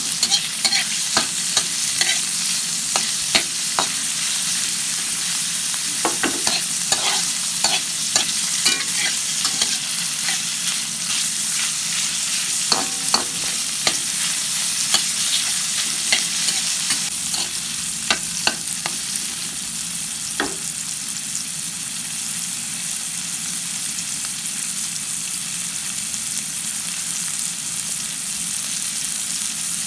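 Food sizzling as it fries in a pan, stirred with a utensil that clicks and scrapes against the pan many times over the first two-thirds. After that it settles into steady sizzling.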